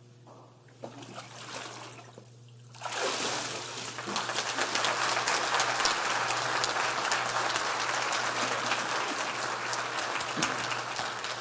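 Water splashing and dripping in a baptismal tank as the man comes up from immersion. Then a congregation breaks into applause about three seconds in, growing louder and clapping steadily.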